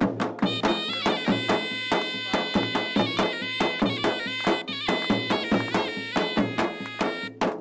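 Zorna, the North African double-reed shawm, playing a loud, reedy folk melody with long held notes over a steady beat.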